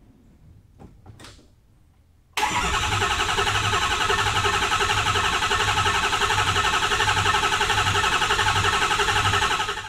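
Starter cranking a 2009 Ford 6.4 Powerstroke V8 turbo-diesel with a rhythmic pulse for about seven seconds without the engine catching, then stopping abruptly. The no-start is one the owner traced to the fuel system not holding fuel pressure. A couple of faint clicks come just before the cranking begins.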